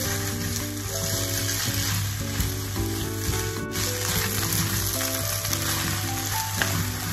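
Glass noodles, mushrooms and cabbage sizzling in a hot nonstick frying pan while being tossed and stirred with a wooden spatula, a steady frying hiss with the scrape and shuffle of the stirring.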